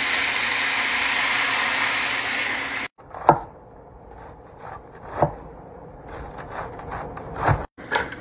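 Liquid poured from a pot into a sizzling pan of browned chicken and vegetables, a steady loud hiss lasting about three seconds. Then a chef's knife slicing a head of cabbage on a wooden cutting board: three crisp cuts about two seconds apart.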